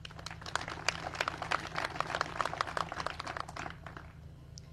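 Audience applauding: a dense patter of many hands clapping that thins out and dies away near the end.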